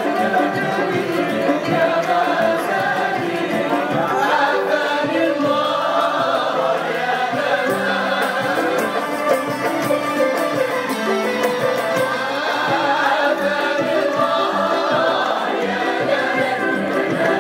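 Traditional string ensemble of ouds, mandolins, guitars and violins playing, with the players singing together in unison.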